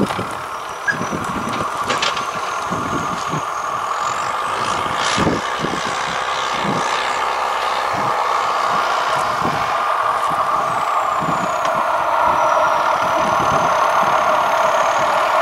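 Diesel train engine approaching along the line, its steady running noise growing gradually louder, with low wind buffeting on the microphone.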